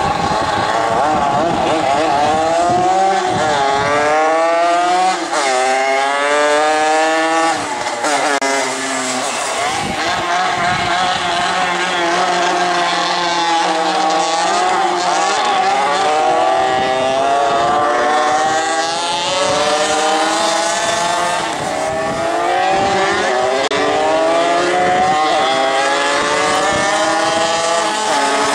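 Two 50 cc two-stroke mopeds revving hard and accelerating down a drag strip, the engine pitch climbing and dropping back several times as they shift up through the gears.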